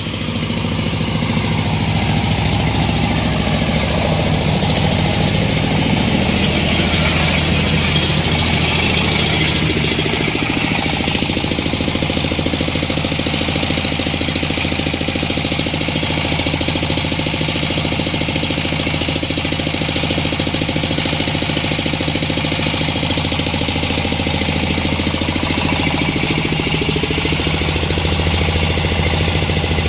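30 HP Dongfeng diesel engine driving a corn sheller on a test run, picking up speed over the first second or two and then running steadily. The machine runs without vibrating.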